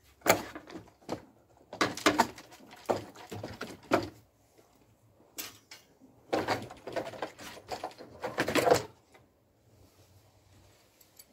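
Hollow plastic clattering and knocking from the plastic windshield cowl panel of a VAZ-2110-family car being handled and pulled away. It comes in several bursts, with the busiest stretch a little past the middle, then goes quiet near the end.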